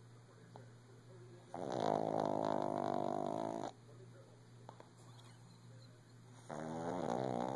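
Shih tzu snoring in its sleep. One long pitched snore starts about one and a half seconds in and lasts about two seconds, and another begins near the end.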